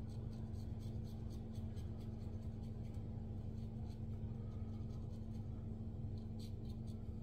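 Gold Gillette double-edge safety razor scraping through lathered stubble under the nose, in quick short strokes, each a brief scratchy rasp. A steady low hum runs underneath.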